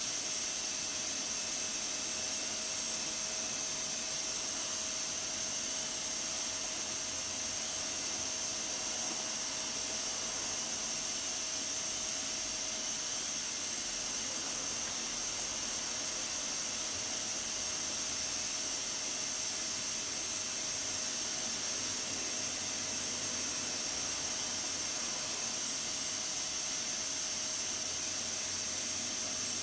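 Pressure cooker at full pressure, steam hissing steadily from its valve, with a faint steady tone underneath.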